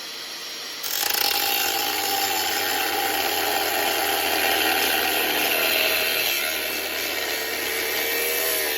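A power tool starts abruptly about a second in and runs steadily, cutting into a motorcycle's metal rear fender.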